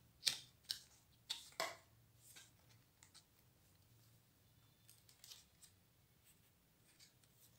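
Cardboard flaps of a lift-the-flap board book being lifted and turned back: four short papery snaps in the first two seconds, then a few faint handling ticks.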